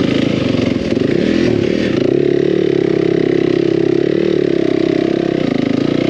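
Yamaha four-stroke dirt bike engine running under throttle, heard from on board. The pitch rises a little about two seconds in, holds steady, then eases near the end.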